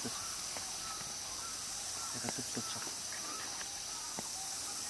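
Woodland background: short bird chirps repeating every second or so over a steady high insect drone, with a few faint clicks.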